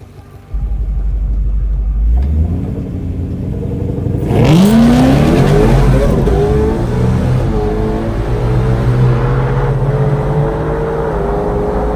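Whipple-supercharged Coyote V8 Mustang on a drag-strip pass: a low rumble while staged, then a hard launch about four seconds in, the engine pitch climbing sharply and running at full throttle, with brief dips at the gear changes.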